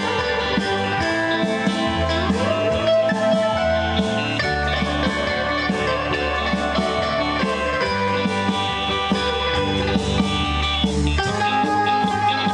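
A live band playing an instrumental 1960s rock tune, an electric guitar (Fender Stratocaster) playing the lead over keyboard, bass and drums. The low bass drops out near the end.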